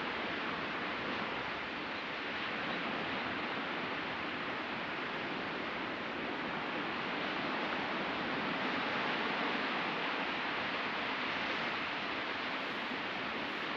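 Sea surf washing onto a beach: a continuous hiss of breaking waves that swells gently in loudness.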